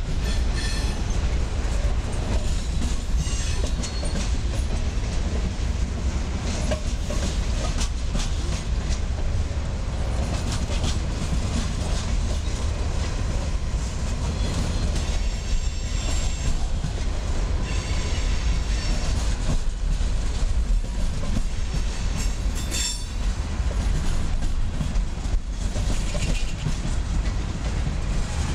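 Freight train cars rolling past: a steady rumble and clatter of steel wheels over the rails, with faint brief high squeals now and then.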